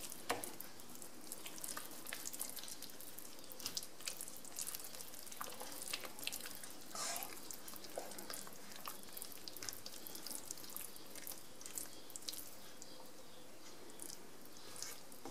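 Wooden spoon stirring thick, creamy risotto as grated parmesan is worked in: faint wet squishing with small, irregular clicks of the spoon against the pan.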